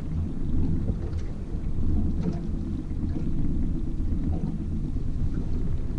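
Steady low rumble of a fishing boat's motor running at trolling speed, with wind buffeting the microphone.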